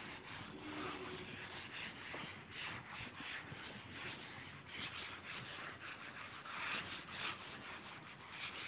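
Cloth duster wiping chalk off a chalkboard in repeated rubbing strokes.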